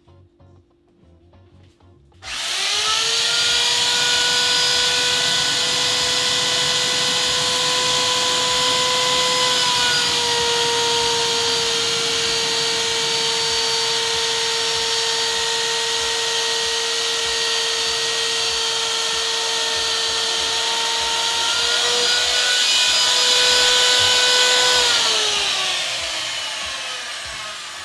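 Electric router switched on about two seconds in, its motor whining steadily as it cuts a small groove into the PVC enclosure panel, dropping slightly in pitch during the cut. Near the end it is switched off and spins down, the whine falling away.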